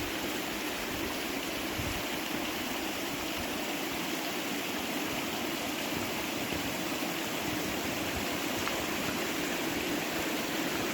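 Rushing water of a mountain stream or waterfall, a steady even rush with no change in level.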